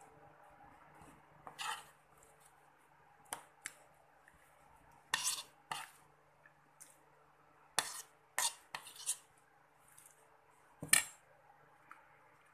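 Metal spoon scraping and clinking against a plate, scooping up the last bits of food, in a string of short, irregular scrapes and clinks, the loudest about eleven seconds in.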